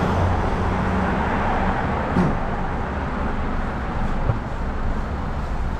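Busy road traffic: a steady rumble of engines and tyres, loudest in the first two seconds as a vehicle goes by close, then easing off.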